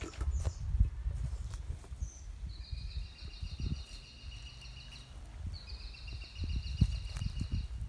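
Low rumble of wind on the microphone with a few light knocks in the first couple of seconds. Two high, buzzy, rapidly pulsed trills from a distant calling animal, each about a second and a half to two seconds long, come a few seconds in and again near the end.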